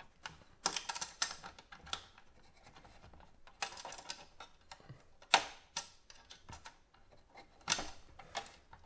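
Plastic pry tool scraping and clicking against a plastic clip on the back of an Xbox One S console as the clip is pried up, in irregular clusters of small clicks and scrapes with one sharper click about halfway through.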